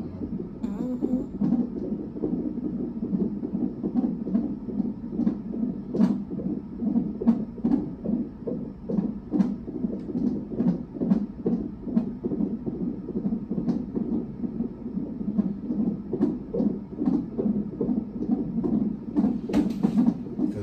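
A fetal heart monitor's Doppler ultrasound transducer playing the unborn baby's heartbeat through its speaker: a fast, steady, rhythmic pulse, with scattered sharp clicks over it.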